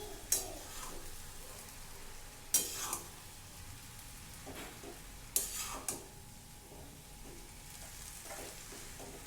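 Boiled noodles being stirred into sauced, stir-fried vegetables in a hot pan on high flame: a faint steady sizzle, with a utensil scraping the pan three times, two to three seconds apart, and a few lighter strokes.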